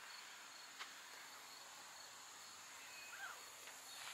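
Faint field ambience: a steady high insect drone, with a soft click about a second in and a few faint bird chirps about three seconds in.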